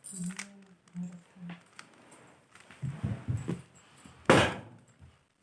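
Rubik's cube being turned by hand: plastic layers clicking and clattering in quick bursts, with one louder clatter about four seconds in.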